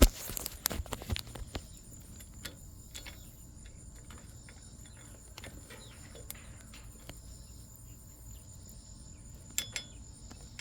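Metal clinking as a stud-installing tool and nut are fitted onto a pickup's wheel stud: a sharp clack at the start, a few lighter clinks over the next second or so, and two more near the end. Crickets chirp steadily in the background.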